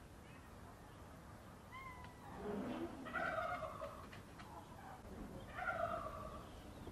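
An animal calling twice, each call drawn out for about a second, the two calls about two and a half seconds apart.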